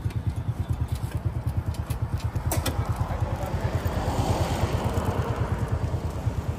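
Small motorcycle engine idling close by, a steady fast low putter. A couple of sharp clicks about two and a half seconds in.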